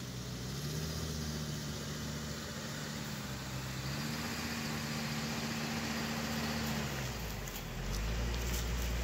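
2007 Hummer H3's 3.5-litre inline-five engine running under load off-road. The engine note steps up about four seconds in, drops back near the end, and gives way to a deep rumble.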